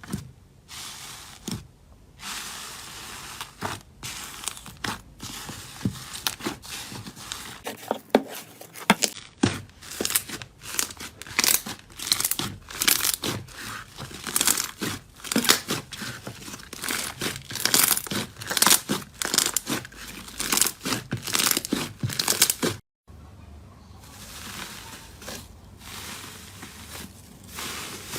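Slime being squeezed and worked by hand, giving dense irregular crackling and popping with sticky tearing sounds. The sound breaks off briefly near the end and resumes more softly.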